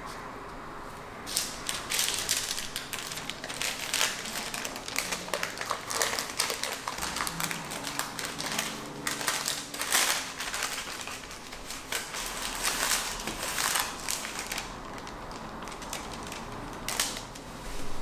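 Brown parchment paper crinkling and rustling as hands roll it tightly around a filled roll, starting about a second in and quietening about three-quarters of the way through, with a brief rustle again near the end.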